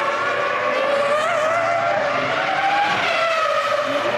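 High-revving V10 engine of a 2001 Formula One car running at speed, its pitch climbing and then dropping about three seconds in.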